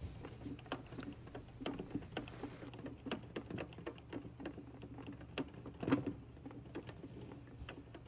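Irregular light clicks and taps of a small screwdriver and hands at work inside a plastic-and-metal locker box, driving its mounting screws, with a sharper knock about six seconds in and a low steady hum underneath.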